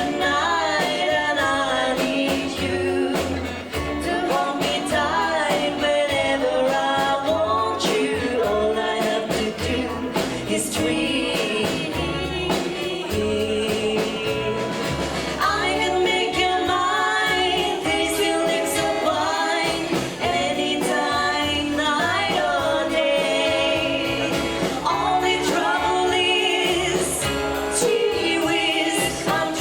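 A live band playing a slow ballad with a sung lead vocal over a steady bass line.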